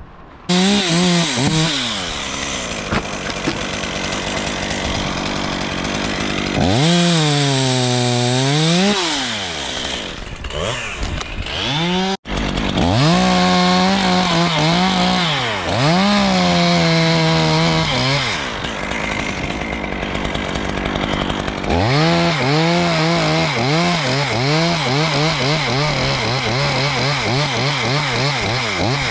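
Two-stroke chainsaw cutting dead, dry oak in several bursts. Its engine note sags as the chain bites into the wood and climbs back as it frees. The sound drops out abruptly for a moment about twelve seconds in.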